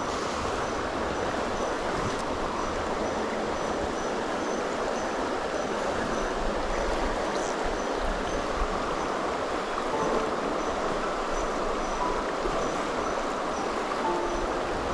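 Fast, shallow river rushing steadily past the bank.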